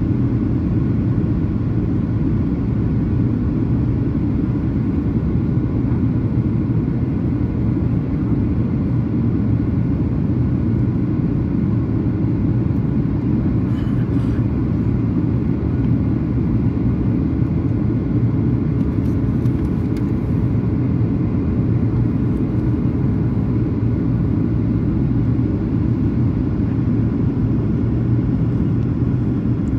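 Steady drone of a Boeing 737-800's CFM56 jet engines heard inside the passenger cabin, a low, even rumble with a faint constant hum that does not change.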